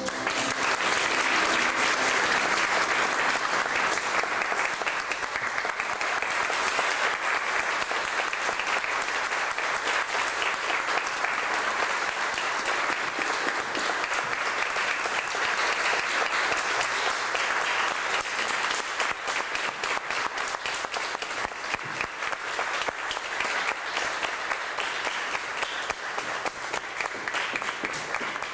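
Audience applauding: dense, steady clapping that thins out toward the end.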